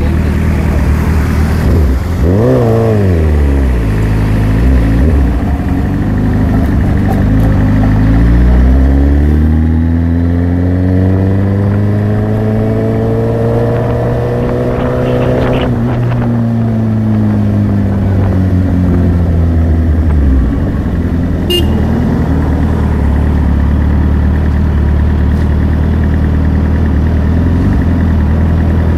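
Motorcycle engine idling, blipped once about two seconds in. It then pulls away, its pitch rising steadily and falling back as the bike slows, and settles to idle for the last several seconds.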